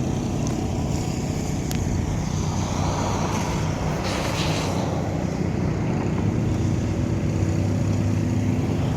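Motor vehicle engine running steadily, with a rush of hissing noise that swells and fades about three to five seconds in.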